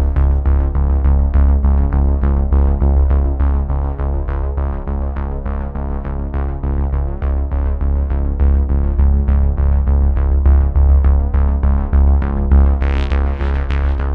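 Electronic background music with a synthesizer, a heavy bass and a quick, steady drum-machine beat.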